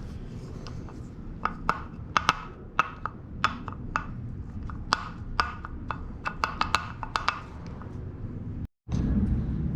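Irregular sharp clicks and knocks of hard parts and tools being handled on a workbench, about twenty in quick succession over a low steady rumble. The sound cuts out abruptly near the end, and a louder rumbling background follows.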